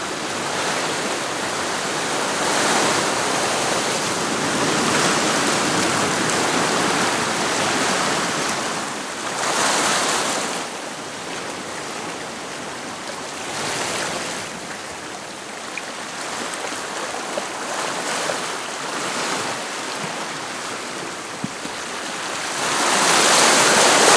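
Sea surging and washing against a rock ledge, a steady rush that swells every few seconds and is loudest near the end.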